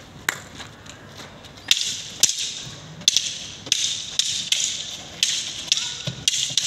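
Long wooden sticks clacking against each other in stick sparring, with sharp knocks irregularly every half second to a second. A rushing noise runs between the knocks.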